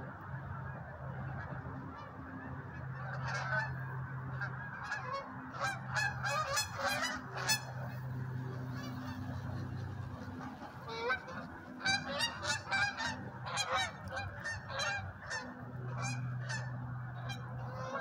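A flock of geese flying overhead, honking repeatedly with many calls overlapping. The honking comes in two spells, with a short lull around the middle.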